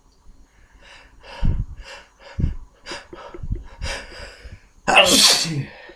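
A man with a head cold sniffing and breathing sharply through his nose as he tries to bring on a sneeze: a run of short snorting breaths, then one loud burst of breath about five seconds in.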